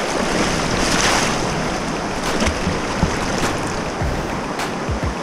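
Rushing river rapids close to the microphone: a steady wash of water noise, with scattered low thuds of wind buffeting the microphone.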